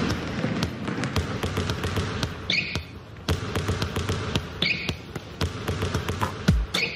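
Basketball bouncing on a hardwood gym floor, with a sneaker squeak about every two seconds, three in all. Near the end the dribbles turn heavy and regular, about two a second.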